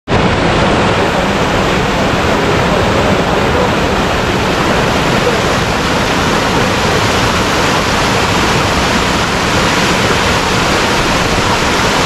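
Small waterfall and cascade rushing down a rocky, moss-covered channel into a pool: a loud, steady rush of water.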